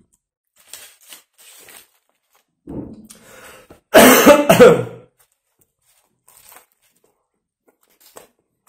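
A man coughing twice in quick succession, loud and harsh, about four seconds in, with a short throat-clearing rasp just before, because a bite of food has gone down the wrong way. Faint mouth clicks come before and after.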